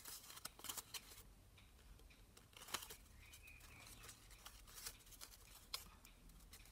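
Folded origami paper units handled and pressed together: faint, scattered paper rustles and small crisp clicks, with a few sharper taps.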